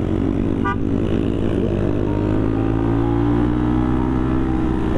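Motorcycle engine running under way, its pitch rising gently as it accelerates through the second half. A brief high chirp comes under a second in.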